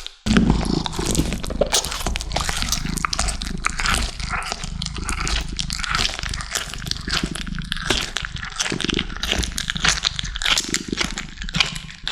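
Kittens chewing and tearing at a large chicken drumstick: a dense run of wet crunching and clicking, with a low growl underneath.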